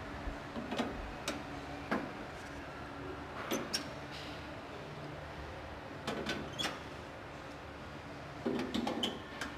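Metal clicks and knocks from hand work on a car body shell in an assembly jig, coming in short clusters several times over a steady factory hum.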